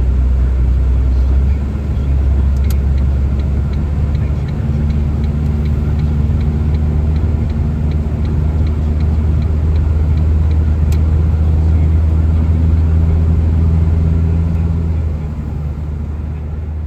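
Subaru BRZ driving, heard from inside the cabin as a steady deep engine and road rumble. From about three seconds in to about eleven seconds there is a light, regular ticking, about three a second, with a sharp click near its start and near its end.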